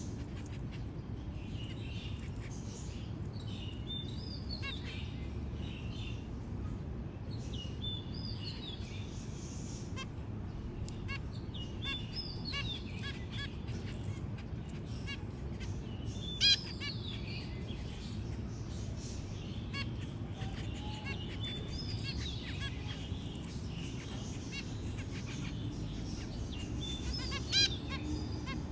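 Caged zebra finches calling: short chirping calls with a rising and falling pitch, in clusters every few seconds, over a steady low hum. Two calls stand out as loudest, about two-thirds of the way through and near the end.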